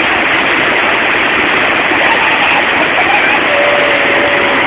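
Water pouring over a river weir, a loud, steady rush.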